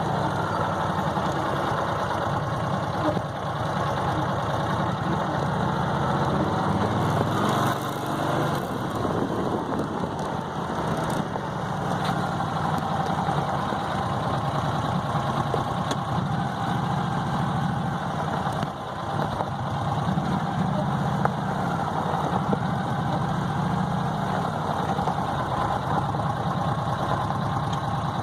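John Deere Gator XUV550 utility vehicle's V-twin engine running steadily, its note shifting slightly a few times.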